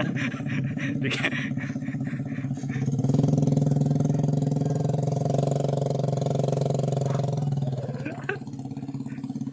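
Laden motorcycle engine running steadily. It pulls harder and louder from about three seconds in and eases off again near the end.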